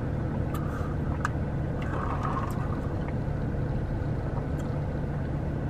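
Steady low hum of a car idling, heard from inside the cabin, with a few faint small clicks.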